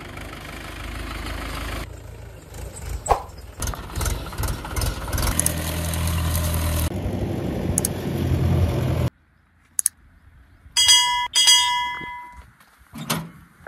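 Mahindra 575 DI tractor's diesel engine running, cut together from several short clips so the sound changes abruptly a few times. About nine seconds in it cuts off, and a click and two short ringing chime tones follow, a subscribe-button sound effect.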